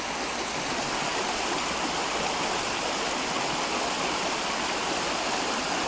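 Shallow river rushing steadily over rocks and small rapids.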